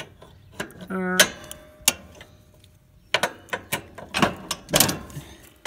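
Irregular sharp metal clicks and rattles from a riding mower's deck-hanger linkage as the deck retaining pin is worked loose, the clicks coming more often in the second half.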